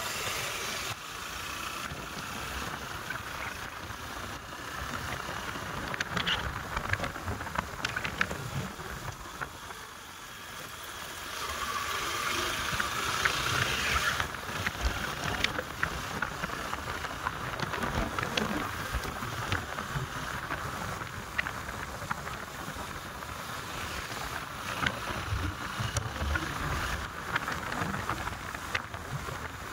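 Wind rushing over the microphone on a moving motorbike, with road noise and scattered clicks; the rush grows louder for a couple of seconds about twelve seconds in.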